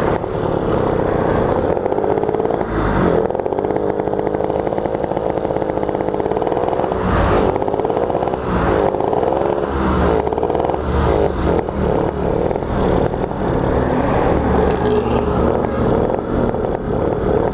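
Suzuki Tornado GS two-stroke motorcycle engine under way, revving up and down through the gears with a couple of brief drops in pitch as the throttle closes. Its running is rough and burbling (ngorok), which the rider puts down to an oversized pilot jet making the mixture too rich.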